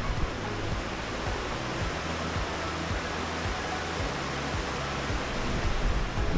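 A steady rushing noise over soft background music; the noise stops abruptly at the end, leaving only the music.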